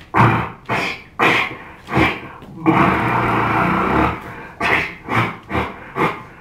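A man making vocal sound effects into a microphone, animal-like and growly: a string of short bursts, with one longer noisy sound from just under 3 seconds in, lasting about a second and a half.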